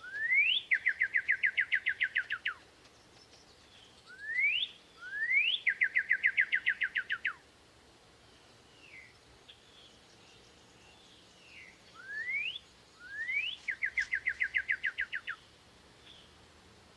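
A songbird singing the same phrase three times: two quick rising whistles, then a fast, even trill of about a dozen notes. Fainter, short falling notes come between the phrases.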